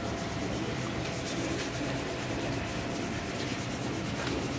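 Steady hand sanding or scraping of a steel tractor wheel disc, an even rubbing of abrasive on metal, as the surface is prepared for paint.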